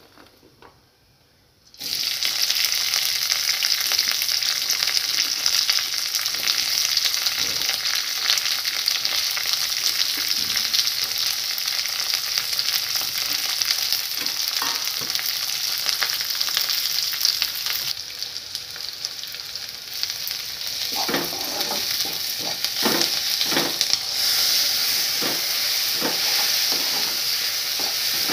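Hot oil in a kadai starts sizzling loudly about two seconds in as sliced onions, green chillies and curry leaves go in and fry. A metal spoon stirs them, scraping and knocking against the pan, with most of the knocks in the second half.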